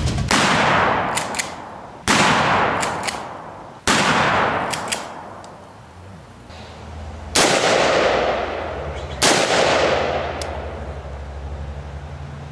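Five loud gunshots, each followed by a long echoing tail. The first three come about two seconds apart, then after a pause two more follow. A low steady hum runs underneath.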